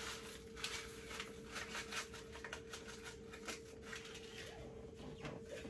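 Faint rustling of a paper seasoning packet being shaken out, mixed with light scrapes and taps of a spoon in the Instant Pot's steel inner pot, over a faint steady hum.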